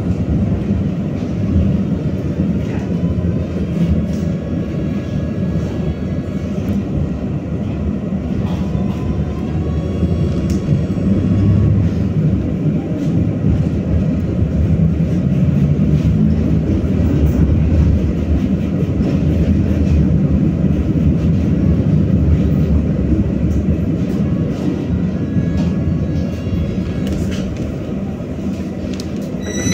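BKM-60102 tram running along the track: a steady rumble of wheels on rails and running gear, louder through the middle.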